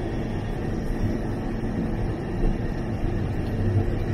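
Steady low background hum and rumble with faint steady tones, like kitchen machinery running; no distinct sound rises above it.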